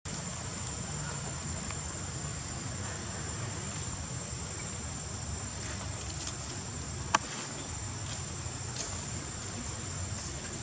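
Steady high-pitched trill of insects, with a low rumble underneath and a single sharp click about seven seconds in.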